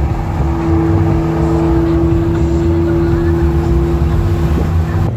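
Car engine and road noise heard from inside a moving car with a window open. An engine drone holds one steady pitch for about four seconds over the rumble.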